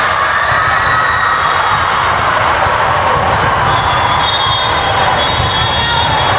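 Volleyball gym ambience: a steady din of many voices in a large hall, with balls thumping against hands and the floor and the squeak of sneakers on the court.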